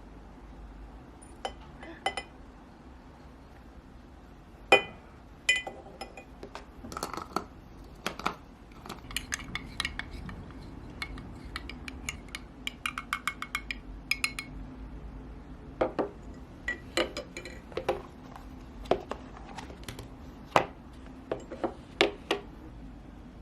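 Kitchenware being handled: dishes and utensils clinking and knocking in an irregular run of clicks and clatters, some ringing briefly. The loudest knock comes about five seconds in, and there is a quick run of light taps around the middle.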